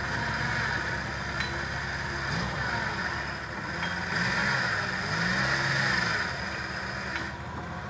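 Jeep Wrangler's engine revving up and falling back in several short pushes as it crawls up a rock ledge, over a steady hiss.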